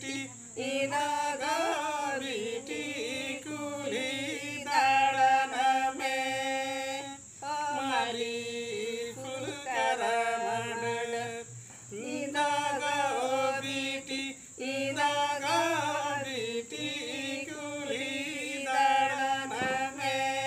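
A small group of voices singing a Santali Sohrai song (sereng) unaccompanied, in short sung phrases with held notes and brief breaks for breath between them.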